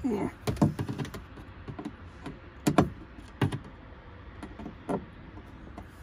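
A handful of irregular clicks and knocks of hand work with a screwdriver and screws on a TV mount arm, as its loose screws are retightened.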